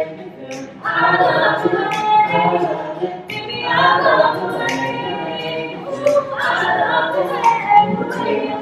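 A mixed-voice a cappella group singing in close harmony, with held chords and new phrases starting every few seconds.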